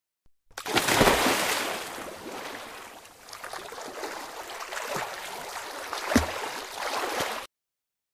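Water sound effect for the sea, with underwater bubbling. It starts about half a second in, is loudest at first, and cuts off suddenly near the end.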